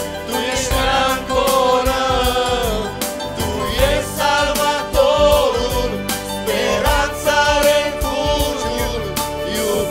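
Live worship band: several voices singing a Romanian worship song together over keyboard and drums.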